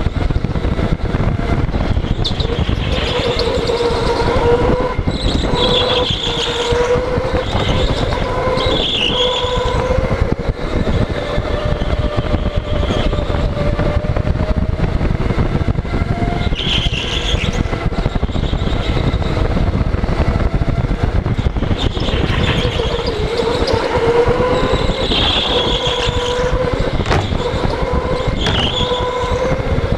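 Electric indoor go-kart (OTL Storm) at racing speed: a motor whine rising and falling in pitch with speed, over a loud rush of wind and track noise, with short high squeals several times as it takes the corners.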